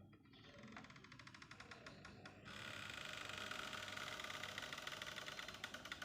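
Faint rapid, rhythmic ticking that grows denser and a little louder about two and a half seconds in.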